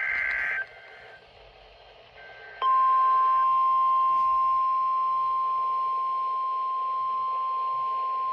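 The end of an EAS/SAME digital header burst, a harsh two-tone data warble, stops about half a second in. After a short gap the NOAA Weather Radio 1050 Hz warning alarm tone starts near the three-second mark and holds as one loud, steady high tone, the signal that a warning message follows.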